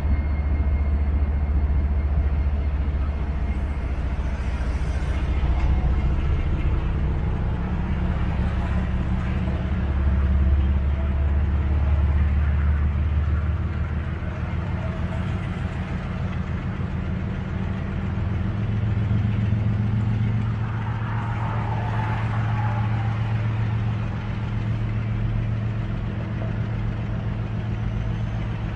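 Diesel locomotive engines running with a steady, loud low drone that steps up in pitch twice, about a third and two thirds of the way through.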